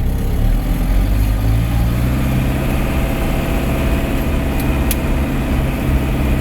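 Case 885 XL tractor's diesel engine running steadily, its speed picking up slightly about two seconds in. Two short clicks sound around five seconds in.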